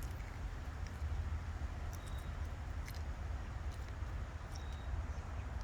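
Faint crackling and squelching of Indian borage (panikoorka) leaves being squeezed by hand for their juice, over a steady low background rumble.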